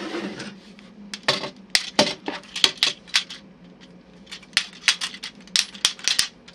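Plastic parts of a Kamen Rider Wizard Wizardragon toy and its Machine Winger bike clicking and clacking as they are handled and fitted together: irregular sharp clicks, some coming in quick runs.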